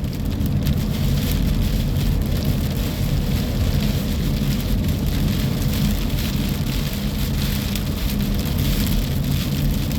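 Rain hitting a moving car, a steady hiss with scattered drop ticks, over the steady low rumble of the car on the road, heard inside the cabin.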